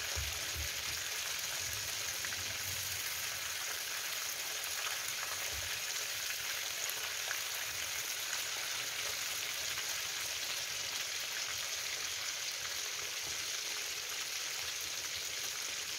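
Hake steaks sizzling steadily in hot oil in a frying pan, an even crackling hiss.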